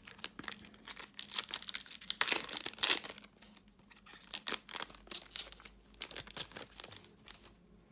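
Wrapper of a 2022-23 Panini NBA Hoops trading card pack being torn open and crinkled in the hands, with a dense stretch of crackling about two to three seconds in, then lighter, scattered crinkles.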